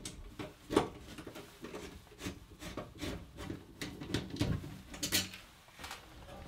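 A screwdriver backing out the screws of a steel electrical panel cover, with the cover shifting under the hands. The sound is an uneven run of small metal clicks, scrapes and rubs, with a sharper knock about three-quarters of a second in.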